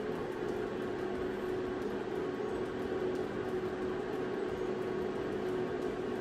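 Electric air fryer preheating, its fan running with a steady hum and one held tone.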